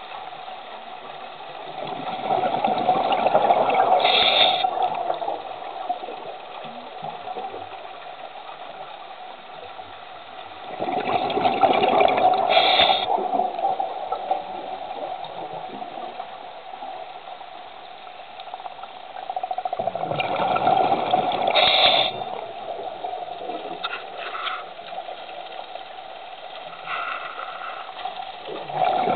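Scuba diver's regulator breathing underwater: three surges of exhaled bubbles, each about two to three seconds long, come about every nine seconds, with a fourth starting at the very end. A softer water hiss runs between them.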